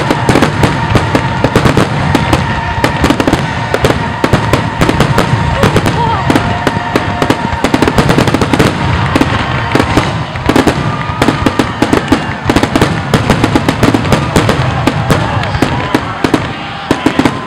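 Aerial fireworks finale: a continuous rapid barrage of shell bursts, many bangs a second.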